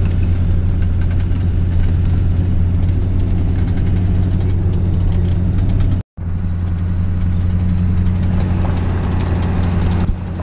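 Ford OBS pickup's 7.3 Powerstroke diesel engine running steadily while driving, heard from inside the cab: a constant low drone with a fine clatter over it. The sound drops out for a moment about six seconds in.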